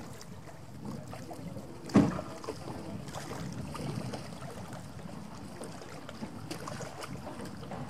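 A single loud knock about two seconds in, from fishing gear and crates being handled on a wooden jetty and moored wooden boats, over a steady low rumble of wind on the microphone.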